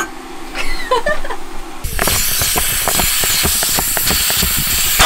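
Air rushing out of an Intex Challenger K2 inflatable kayak's chamber valve as it is pushed open to deflate it: a loud, steady hiss that starts suddenly about two seconds in.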